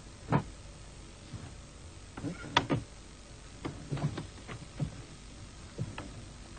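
Scattered short knocks and shuffles, a dozen or so spread over a few seconds, the loudest near the start and about two and a half seconds in, over low steady room noise.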